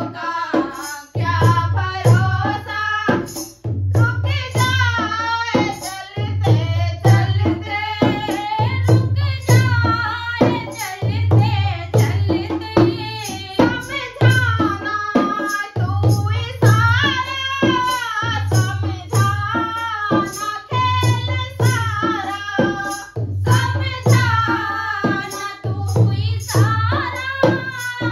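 Women singing a Hindi nirgun bhajan, with a dholak played by hand keeping a steady rhythm of low drum strokes. Sharp clicks from a plastic hand clapper mark the beat.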